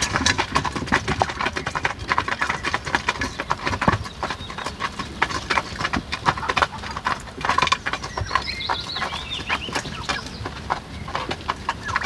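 Farmyard poultry calling amid irregular clicks and knocks, with a short high chirping about eight seconds in.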